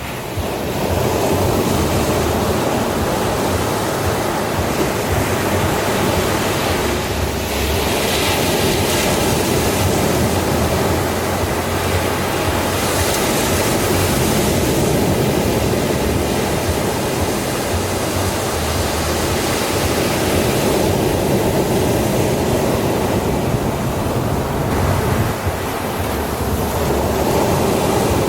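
Ocean surf breaking and washing onto a shore: a steady rush of water, growing louder as bigger waves break a few times.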